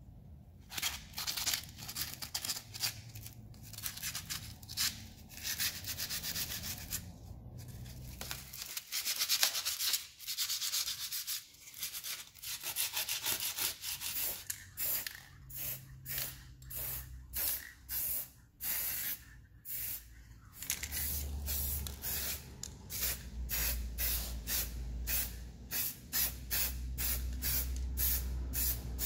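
Hand sanding with sandpaper in repeated back-and-forth strokes, which come quicker and more regularly over the second half.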